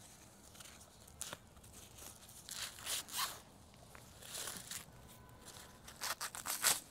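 Several short bursts of rustling, tearing noise, grouped in clusters with the loudest near the end.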